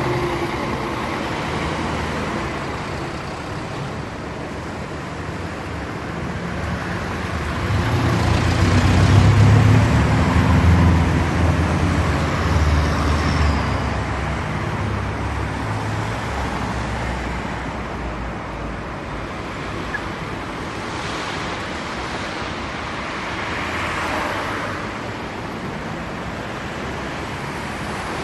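Road traffic noise, steady throughout, with a motor vehicle passing close and loudest about nine to eleven seconds in.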